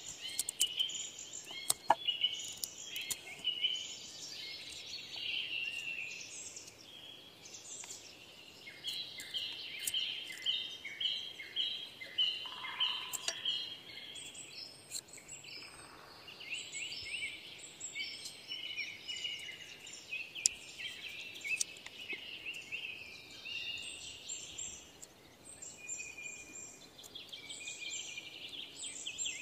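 Several songbirds chirping and singing in quick repeated phrases, with a few faint clicks of a knife cutting into the wood of a small fork being whittled.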